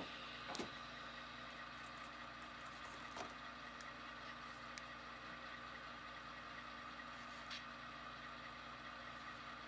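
Faint steady hum, with a few soft clicks from paper car cards being handled.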